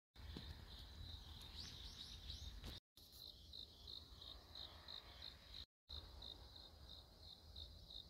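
Faint insect song, a high trill pulsing about three times a second, in three short takes that cut off abruptly with brief silences between them. A few short rising calls in the first take, and a low rumble underneath.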